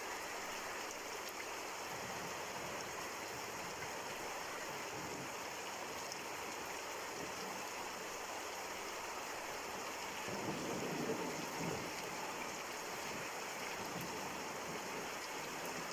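Steady rain falling, an even hiss of drops with no break. About ten seconds in, a deeper rushing swell rises for a couple of seconds and fades.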